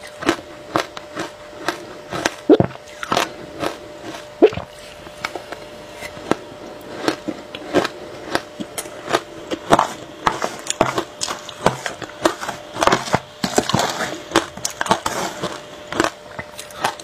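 Close-miked crunching of frozen shaved ice coated in matcha and milk powder as it is bitten and chewed, many sharp irregular crunches a few each second.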